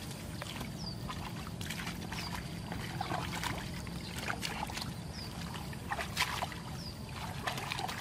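Hands splashing and scooping muddy water in a shallow pit, with irregular splashes and sloshes. A short high falling chirp repeats every second or two.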